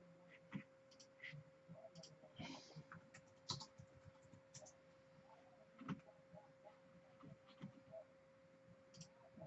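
Faint, scattered clicks of computer keyboard typing and mouse clicking, over a faint steady electrical tone.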